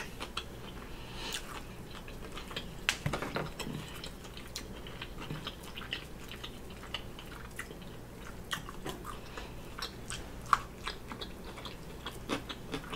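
Close-miked chewing and biting of a BBQ bacon burger: many short, soft mouth clicks and wet smacks, with a slightly louder cluster about three seconds in.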